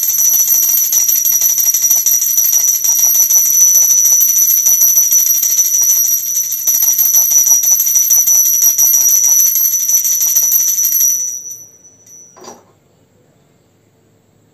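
Small hand-held puja bell rung rapidly and continuously, a high steady ringing that stops about eleven seconds in. A single knock follows about a second later.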